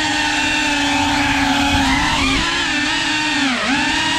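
Cinewhoop FPV drone's motors and ducted propellers whining, the pitch holding steady and then dipping and recovering as the throttle changes, with a marked dip about three and a half seconds in.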